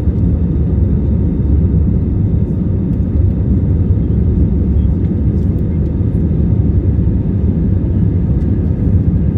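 Steady cabin rumble of an Airbus A320 climbing after takeoff, heard from a window seat over the wing: engines at climb power and rushing airflow, with a faint steady engine whine above the deep roar.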